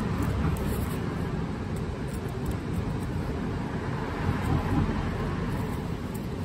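Steady low rumbling background noise with a hiss above it.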